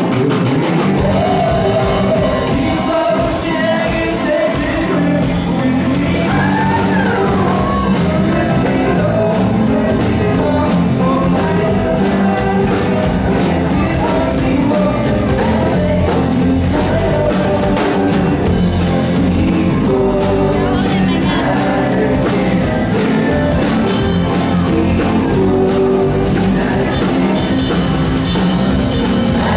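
Live band playing a rock song: a singer over amplified electric guitar, bass guitar and keyboard, continuous and loud.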